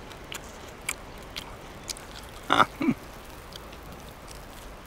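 A man eating roasted trout with his fingers: faint scattered clicks of picking and chewing, and a short murmured "mm" followed by a lower one about halfway through.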